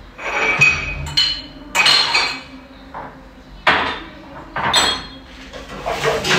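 Dishes and drinking glasses clinking and knocking together as they are handled: a series of sharp clinks about a second apart, some with a short ringing tone.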